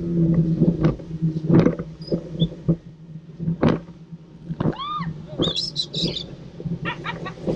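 A pet parrot calling over the steady hum of a moving boat's motor and frequent thumps. There is one arching call a little under five seconds in, then a quick run of high chattering notes, and more short squawks near the end.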